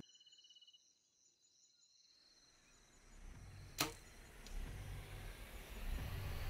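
A bow shot at a warthog about four seconds in: one sharp snap of the bow releasing the arrow, followed by a much fainter tick, over a rising background hiss. Insects chirp faintly in a steady pulsing pattern for the first second.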